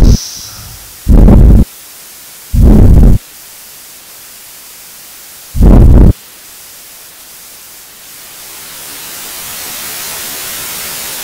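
Industrial noise music: three loud, clipped bursts of low noise, each about half a second long, spaced over the first six seconds. Between them runs a steady hiss that swells gradually over the last few seconds.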